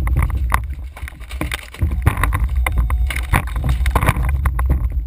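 Wind rumbling on the microphone aboard a small boat, with frequent sharp knocks and clatter on the deck as the crew works over the catch.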